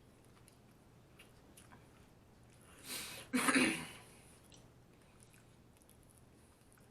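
A person eating fast food: quiet chewing and small wet mouth clicks, with one loud, short, breathy mouth sound about three seconds in.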